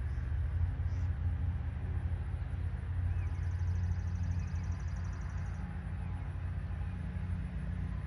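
Steady low rumble of outdoor background noise. About three seconds in, a high, rapid trill sounds for a couple of seconds.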